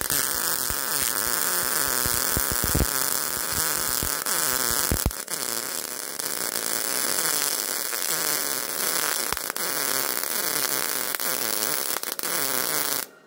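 MIG welding arc from a Miller 211 running a bead on thin auto body sheet metal at voltage setting 4: a steady crackle broken by popping, the arc sound inconsistent, a sign the voltage is still too low. It starts at once and cuts off suddenly near the end.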